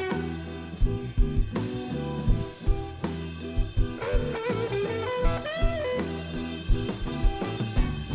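Live blues-rock band playing an instrumental passage: a lead electric guitar line with bent notes over a drum kit and bass.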